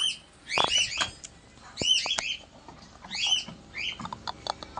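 Small bird chirping repeatedly: clusters of quick, high, arching chirps about once a second.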